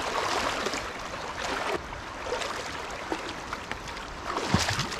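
River water flowing steadily, with a louder patch near the end.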